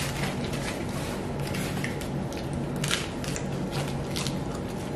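Paper taco wrappers crinkling as they are unwrapped, mixed with crunchy hard taco shells cracking as they are bitten into: a string of short, irregular crackles and crunches.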